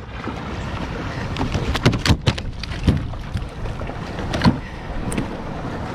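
Wind buffeting the microphone over the open sea from a fishing kayak, with a few sharp knocks and clicks: a cluster about two seconds in, one near three seconds and one at about four and a half seconds.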